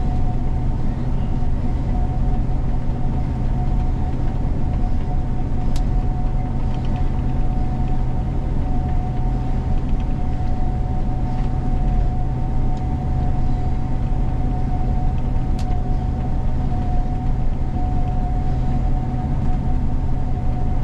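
A Gleaner combine running steadily while harvesting soybeans, heard from inside its cab: a deep, even drone with a constant whine on top. Two short clicks come about ten seconds apart.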